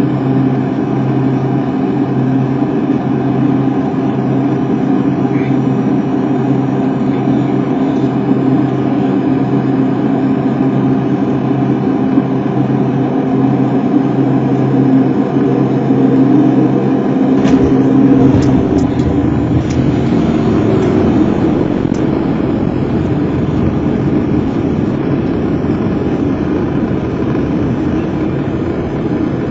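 Light propeller aircraft's engine heard from inside the cockpit, a steady drone on final approach; about two-thirds of the way through the engine note drops away and a low rumble of the wheels rolling on the runway takes over after touchdown.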